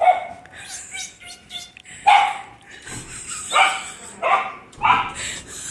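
Dog barking repeatedly in short sharp barks, about five loud ones.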